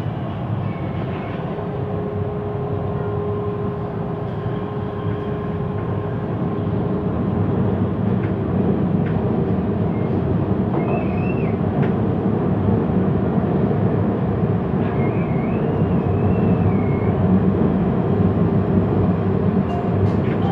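Siemens Inspiro MRT train running at speed, heard from inside the carriage: a steady rumble of wheels and running gear that grows a little louder about seven seconds in. A faint steady whine sits under the rumble for a few seconds near the start.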